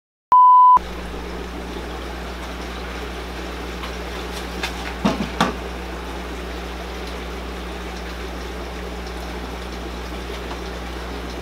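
A short, loud beep tone just after the start. Then the steady hum and water noise of aquarium pumps and filters running in a fish room, with a few brief knocks about five seconds in.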